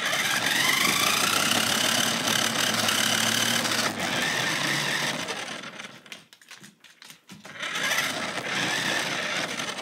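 Electric motor and gears of a cheap toy RC car driving across the floor, heard from a phone riding on the car: a whine that rises as it speeds up, cuts out about five seconds in, and starts again a couple of seconds later.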